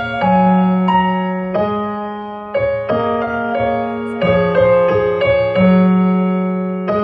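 Slow piano music from a keyboard: a melody of single notes and chords struck every half second to a second, each ringing on and fading, over held bass notes.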